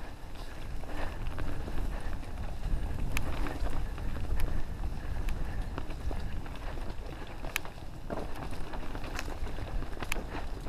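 Wind buffeting a moving microphone as a steady low rumble, with sharp clicks and knocks now and then, the clearest about three, seven and a half and ten seconds in.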